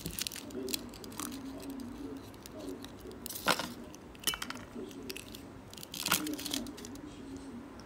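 Aluminium foil wrapper crinkling and tearing as it is peeled off a chocolate egg, with a couple of sharp clicks.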